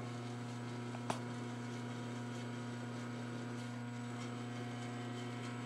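CNC-retrofitted Bridgeport vertical milling machine running its program with the spindle turning: a steady electrical hum from its motor, with a single small click about a second in.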